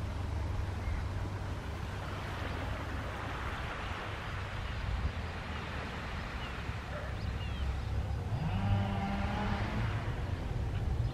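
Shoreline ambience: wind rumbling on the microphone over a soft wash of small waves lapping the beach. About eight seconds in, a steady low drone comes in for a second or two.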